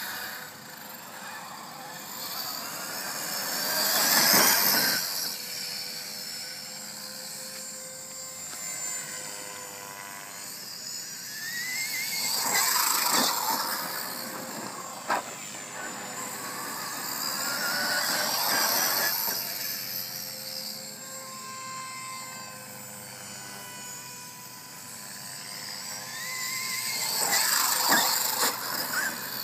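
Traxxas E-Revo RC monster truck's brushless electric motor whining, with its tyres rushing over pavement and grass. The sound swells loud four times as the truck speeds past, and the pitch rises twice as the throttle opens. A single sharp click comes about halfway through.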